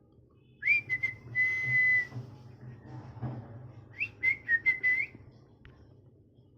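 Rose-ringed (Indian ringneck) parakeet calling with whistles: a note that rises into a long held whistle about half a second in, then a quick run of short chirps around four seconds in.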